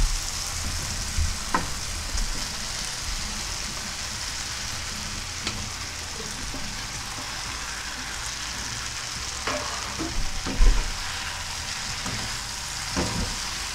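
Onion-tomato masala sizzling with a steady hiss in a nonstick frying pan as torn parotta pieces are tipped in and stirred together, with a few scattered knocks of the spatula against the pan.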